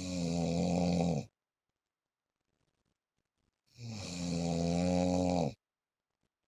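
A man snoring in his sleep: two long snores, the first already under way at the start and ending just over a second in, the second starting about three and a half seconds in and lasting about two seconds. Each is a low, buzzing snore with an airy hiss over it.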